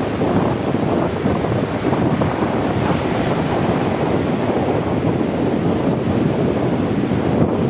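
Sea waves washing in a steady rush, with wind buffeting the microphone.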